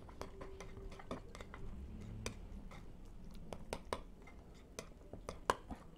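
A metal spoon stirring a crumbly, damp bait mix in a glass bowl: irregular light clinks and scrapes of the spoon against the glass.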